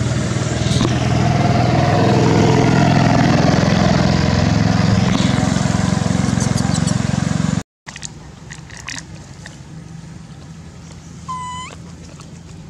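A motor vehicle's engine running close by with a steady low hum, loud, cutting off abruptly a little over halfway through. After that a quiet outdoor background with a few light ticks and one short high squeaking call near the end.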